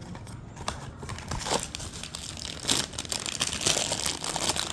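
Plastic or foil toy packaging being crinkled and torn open by hand, with a run of quick rustles and crackles that gets busier over the last couple of seconds.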